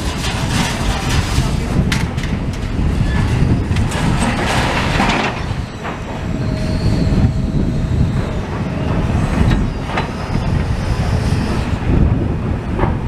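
Heavy demolition machinery working: a steady low rumble with a few metallic knocks and brief high squeals, the squeals around the middle and latter part.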